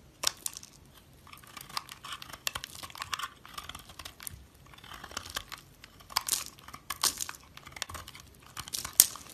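Knife cutting into dry soap: irregular crisp, crunchy scraping and crackling with scattered sharp snaps, the loudest near the end.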